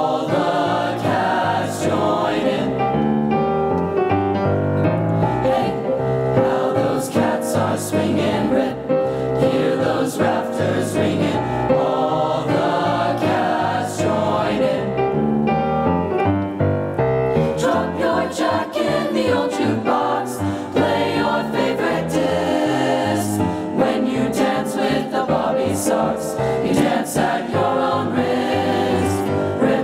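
Mixed chamber choir singing an upbeat swing arrangement, with piano accompaniment.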